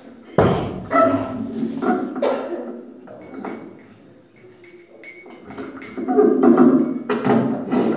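Hand-played mridanga, a two-headed barrel drum. There is a deep stroke about half a second in and a run of strokes in the second half.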